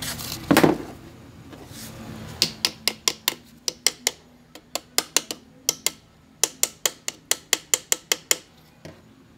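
Hammer tapping a piston down through a band-type piston ring compressor into a cylinder of a Subaru FB20 engine block. The taps are sharp and light, coming in quick runs of about four or five a second, after one louder knock near the start.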